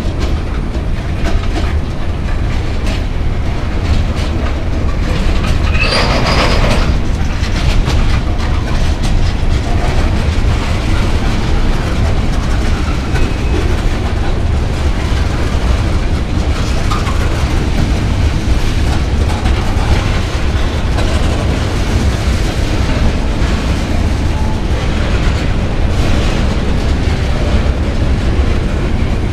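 Freight train of covered hopper cars rolling past: a steady, loud rumble with the wheels clacking over the rail joints. A short, higher-pitched screech cuts in about six seconds in.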